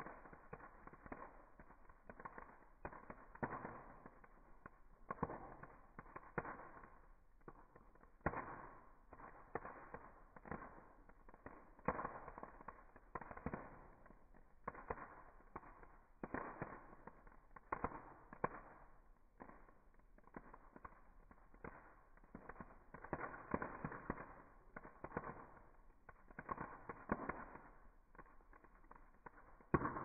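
Campfire burning in a metal mesh fire basket, crackling and popping with many sharp snaps at irregular intervals, some in quick clusters.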